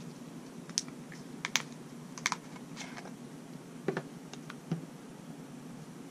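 Plastic fork-oil bottle being handled and its cap worked open with gloved hands: a scattered string of small sharp clicks and taps, the loudest in the first half.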